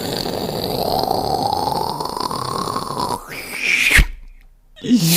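A person making a sound effect with their voice: a long, noisy, breathy rush with a faint tone gliding slowly upward, breaking off about three seconds in, then a short burst just before four seconds.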